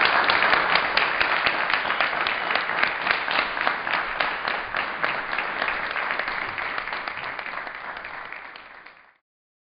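Audience applauding, loudest at first and slowly fading, then cut off suddenly near the end.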